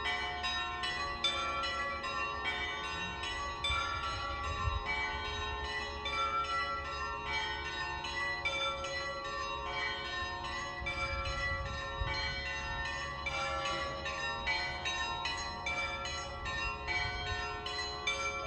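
Several church bells of different pitches rung together in a continuous peal, a quick, even run of strikes about two to three a second, each note ringing on under the next.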